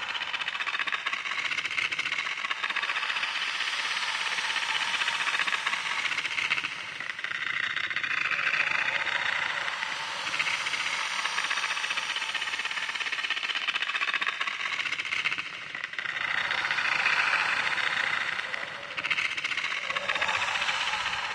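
A loud, continuous hissing, rasping noise that swells and eases every few seconds.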